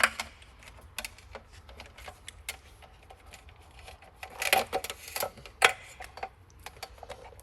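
Scattered light clicks and rattles of a desk switch's cable and plastic connector being handled and pushed through a standing-desk frame's cable tray. There is a louder patch of rattling about four and a half seconds in and a sharp click just after it.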